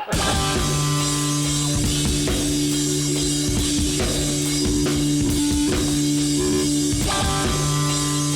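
Rock music with drum kit and guitar, cutting in suddenly at the start over steady held low notes.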